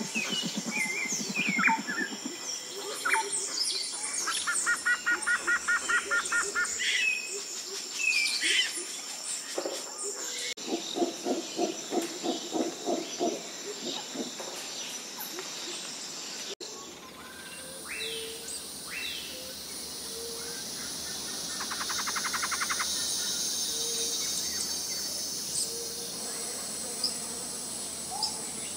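Forest birds calling: short chirps, whistled sweeps and several fast repeated trills, over a thin, steady high insect drone. Partway through this gives way to a steady hiss, with the birds still calling.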